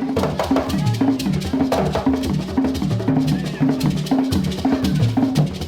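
Percussion music: short, low pitched notes struck about five times a second, stepping up and down in a repeating pattern, with drum strokes over them.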